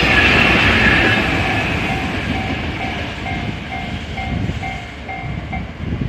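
Freight train rolling past, its wagons rumbling with a clickety-clack on the rails that fades away. Partway through, a level-crossing warning bell is heard ringing about twice a second, and it stops shortly before the end.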